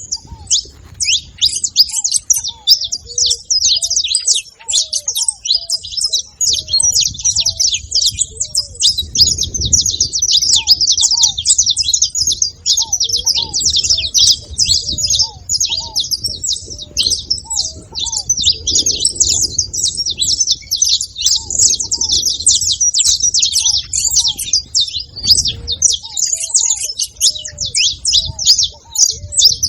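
Saffron finch singing continuously: a dense, fast run of high chirps and trills. A lower short arching note repeats underneath every second or so.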